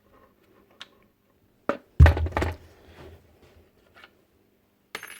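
Handling of the opened nail gun's parts: scattered small clicks and knocks, with a louder pair of thunks about two seconds in.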